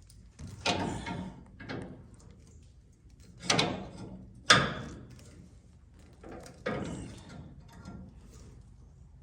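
Irregular metal knocks and clanks, five or six in all, from a bent metal bracket on a race car chassis being worked straight; the two loudest come about three and a half and four and a half seconds in.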